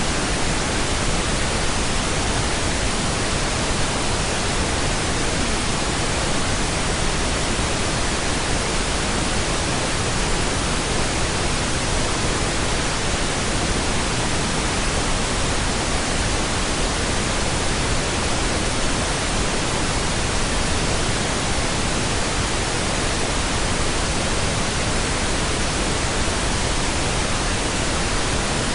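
Steady pink noise: an even, unbroken hiss with a deep rushing quality. It does not change in level or character.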